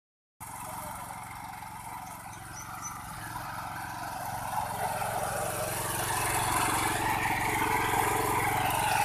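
Weima 13 HP walk-behind mini tractor's engine running steadily as it pulls a tine cultivator through dry soil, growing louder as it comes closer.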